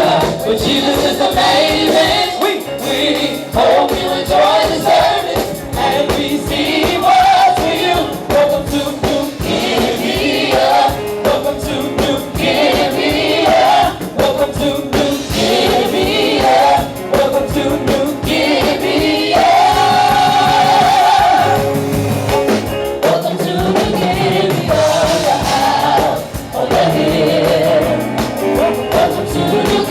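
Gospel choir singing with a band and a steady beat.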